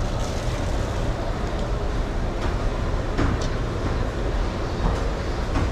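Steady low rumble of indoor market background noise, with a few faint light knocks or clicks scattered through it.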